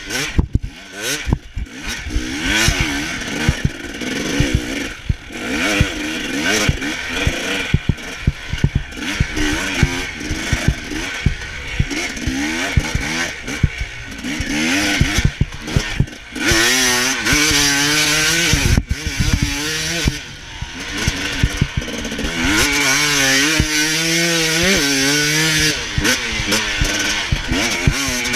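Motocross bike engine ridden hard, revving up and falling back again and again as the throttle is opened and closed, with long rising sweeps through the gears in the second half.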